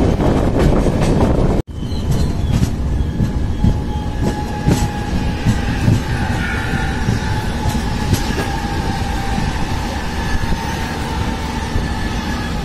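Moving express train's wheels running over rail joints and points, with clacking and a rumbling roar. A few seconds in a steady high-pitched wheel squeal joins it as the train takes the curve and crossovers onto the diverging line. The sound drops out abruptly for a moment about two seconds in.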